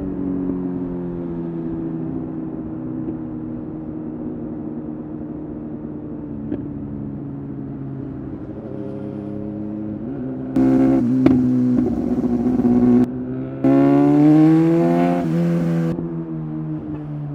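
Superbike engine at riding speed, running steadily. About ten seconds in it turns suddenly much louder and revs hard, with a brief drop near the middle and then a second hard pull rising in pitch before it eases off near the end.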